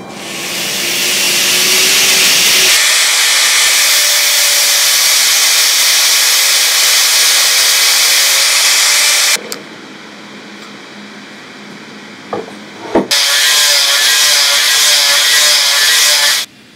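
Angle grinder grinding a small cast metal sword-grip part, a loud grinding rasp over a steady high motor whine, as the casting is cleaned up. About nine seconds in the grinding stops and the grinder spins on more quietly; two sharp knocks, then the grinding starts again at full level and cuts off just before the end.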